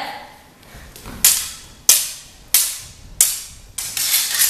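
Stage-combat swords clashing blade on blade in a duel: five sharp strikes at a steady pace about two-thirds of a second apart, the last one drawn out longer.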